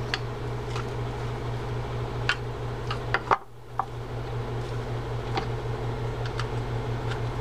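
Scattered small clicks and taps of a hand screwdriver and fingers on the plastic body of a spinning reel as its side-plate screws are driven in, over a steady low hum. The sound drops out briefly about halfway through.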